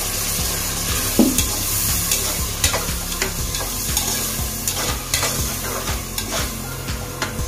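Boiled green peas being stirred into sizzling masala in a metal pot with a perforated steel ladle. The sizzling is steady, with frequent sharp clicks and scrapes of the ladle against the pot.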